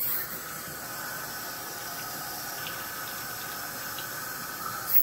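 Tap water running from a faucet into a Cascade 1000 canister filter's plastic housing, filling it through the media baskets, in a steady rush with a few faint ticks.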